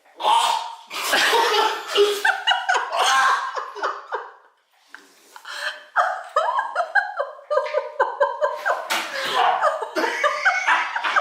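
Men laughing loudly and repeatedly in fits, with a short lull about four seconds in.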